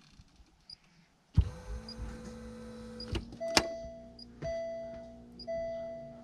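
About a second and a half in, the electric pumps of the converted car's drive-unit cooling system switch on with a thump and settle into a steady hum. Two sharp clicks follow, and then the battery management system starts beeping, about once a second, because one of its battery boards is faulty and not connected.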